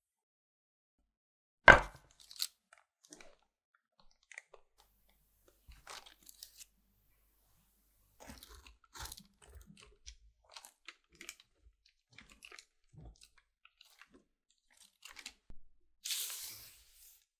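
A single loud thump about two seconds in, then scattered faint clicks and small crackles. Near the end comes a burst of crisp crackling as a hand presses down on the crusty, seed-topped top of a baked banana loaf sitting in parchment paper.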